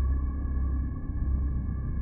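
Synthesized sci-fi UFO hover sound effect: a deep, steady electronic hum under several held high tones, the low hum dipping briefly about halfway through.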